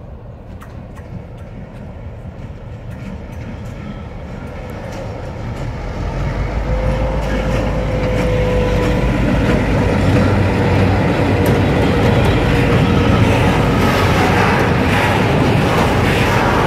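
Serbia Cargo 661-162, an EMD G16 diesel-electric locomotive with a two-stroke V16 engine, approaching slowly and passing: its engine drone grows steadily louder over the first half, then holds loud. Tank wagons follow, rolling by with wheel clicks over the rail joints near the end.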